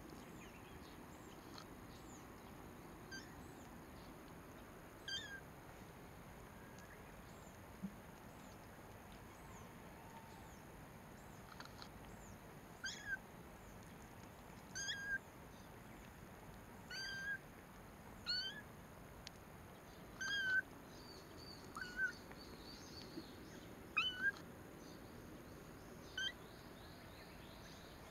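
Small kittens mewing: a string of short, high-pitched mews, a few at first and then one every second or two through the second half.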